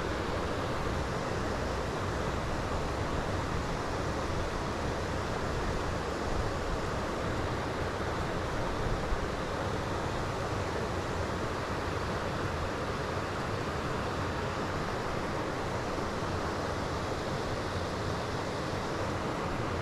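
Steady rushing wind, with low rumbling buffets of wind on the microphone.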